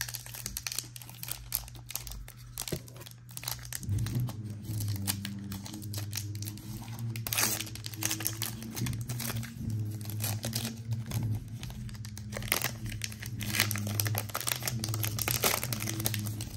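Foil wrapper of a Donruss basketball card pack crinkling and tearing as it is ripped and peeled open by hand, with many sharp crackles.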